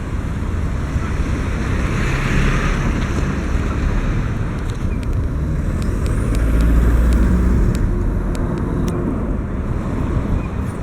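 Strong gusty wind buffeting the microphone, a steady low rumble that swells toward the middle, with road traffic passing.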